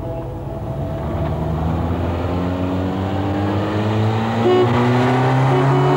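A car engine accelerating, its pitch rising steadily and growing louder.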